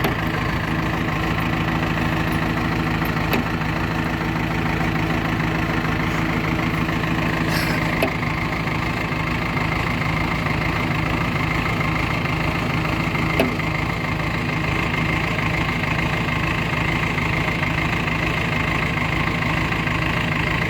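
Diesel engine of a JCB 3DX backhoe loader running steadily at an even pitch, with a few short knocks scattered through.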